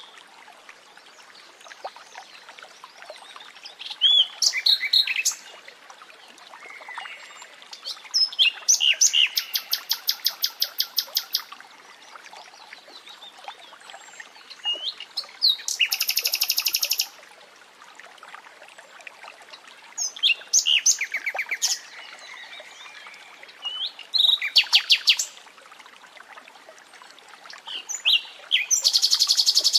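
Nightingale singing: about six separate phrases of whistles and fast runs of repeated notes, each a second or two long, with pauses of a few seconds between them.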